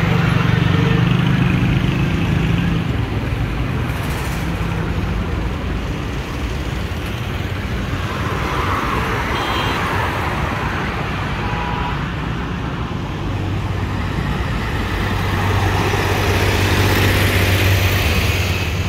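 Road traffic on a busy main road: cars driving past one after another, their noise swelling and fading as each goes by, over a steady low engine hum.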